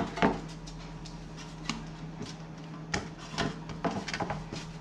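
Metal cake pan being lifted and tilted on a wooden cutting board as it is buttered, giving scattered light knocks and handling noises. A steady low hum runs underneath.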